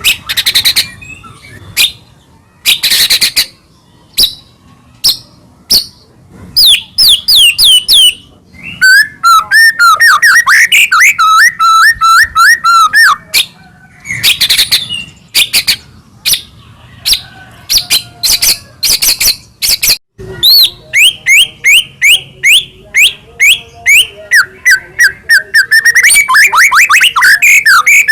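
White-rumped shama (murai batu) singing loudly and continuously. It gives harsh rasping notes, quick falling whistles and fast trills, then long rapid runs of short repeated notes in the second half.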